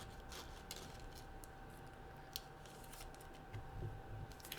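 Faint, scattered clicks and rustling of trading cards and their packaging being handled.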